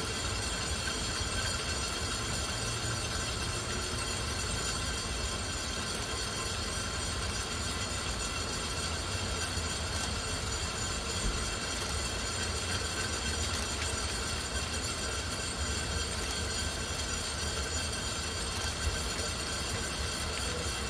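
Lookout Mountain Incline Railway funicular car coming down the track, a steady low rumble of the car and its running cable gear on the rails, with a few faint ticks.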